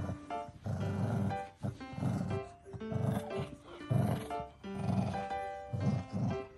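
Background music over a Shih Tzu growling in short rough bursts, roughly once a second.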